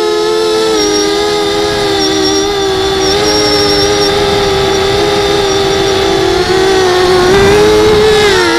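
The brushless motors and propellers of a 250 mm FPV racing quadcopter whining in flight. Several close pitches hold fairly steady, shifting slightly up and down with the throttle.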